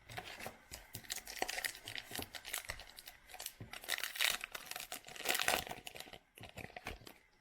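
A foil trading-card pack wrapper crinkling as it is torn open and handled, in a run of crackly bursts that fade near the end.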